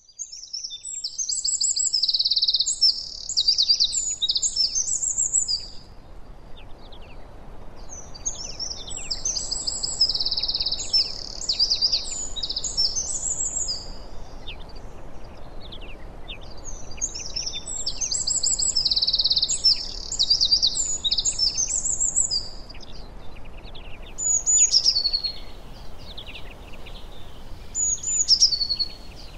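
A songbird sings three long, fast, high-pitched twittering song phrases of about five seconds each, with a few short high calls near the end. A faint steady background hiss runs underneath.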